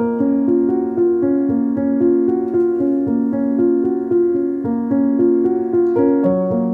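Background music: a keyboard melody in a steady, gentle rhythm, with notes changing several times a second.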